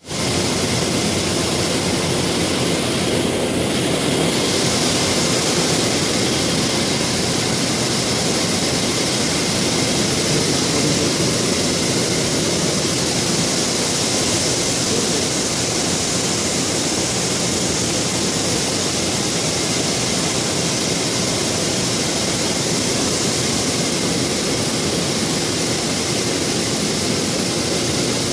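HVAC fan motor switched on and running steadily, its fan pushing a strong, even rush of air; the motor has just been rebuilt with a rotor moved over from another unit.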